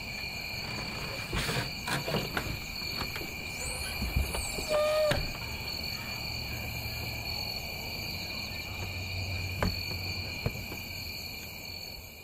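Night chorus of crickets trilling steadily at two pitches. A few clicks and knocks come in the first five seconds, with a short low tone about five seconds in. The sound fades out at the end.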